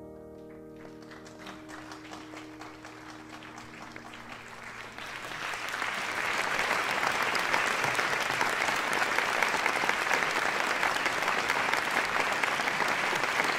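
A crowd applauding: scattered claps at first, swelling to full, steady applause about five seconds in, while the last of a sustained piano chord fades out.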